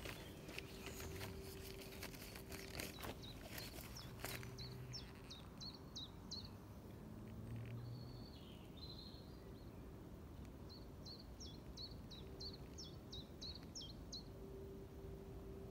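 A small songbird singing two phrases of quick, repeated high notes, each about three seconds long, with a few clicks and rustles of handling in the first four seconds.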